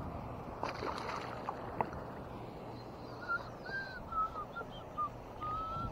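A string of short whistled notes, about seven in the last three seconds, with fainter higher chirps, over a steady low hum.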